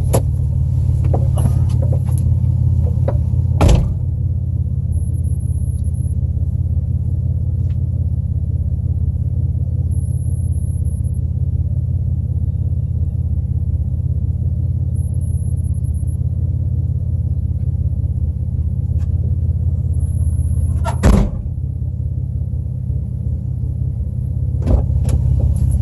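Vehicle engine idling steadily, a low rumble heard from inside the cab. A door thuds shut about four seconds in and again about 21 seconds in.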